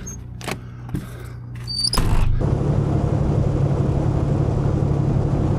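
A few clicks and knocks over a Peterbilt semi-truck's running diesel engine. About two seconds in, this gives way to the steady drone of the truck's engine and road noise while driving.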